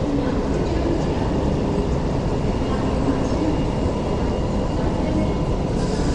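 Hong Kong Light Rail Phase 5 two-car light rail train pulling into a station platform: a steady rumble of the train running on the rails.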